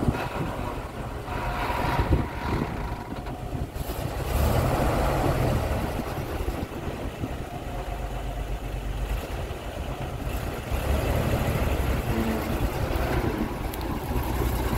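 GMC 4000 fire truck's V6 gasoline engine idling steadily, its sound swelling a little twice.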